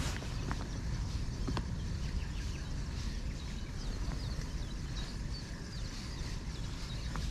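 Many small birds chirping and singing at once over a steady low rumble, with a few faint clicks.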